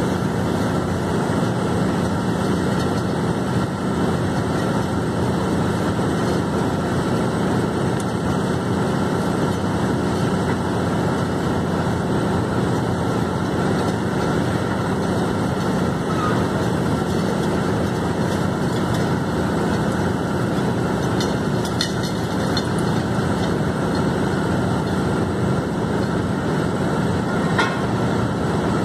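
Casagrande C6 drilling rig drilling with a down-the-hole hammer through casing: a loud, steady, dense clatter of hammering and air blowing from the hole, with a few sharper knocks in the last third.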